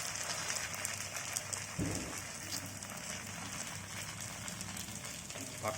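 Rice-flour roti batter frying in hot sesame oil in a pan: a steady crackling sizzle.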